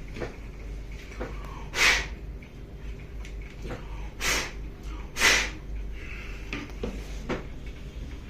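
Three short puffs of air blown at a laptop's cooling fan to clear dust from it, about two seconds, four seconds and five seconds in, with faint small clicks between them.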